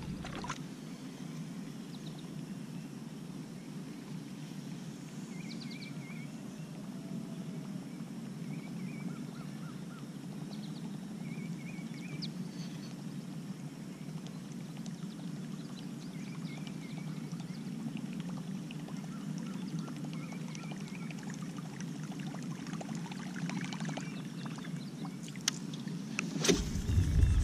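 Quiet lake ambience: a steady low background hum with faint, short bird calls every second or two. Near the end come a few sharp clicks and a swish as a spinning rod is cast.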